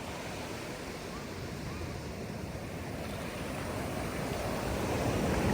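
Ocean surf and wind: a steady rush of noise that slowly grows louder.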